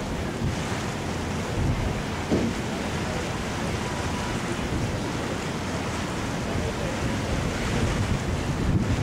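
Steady wind buffeting the microphone over the rush of lake water, heard from a boat on the water.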